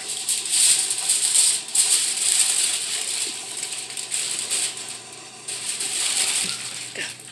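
Aluminium foil crinkling as it is handled, in crackly bursts with a short pause about five seconds in.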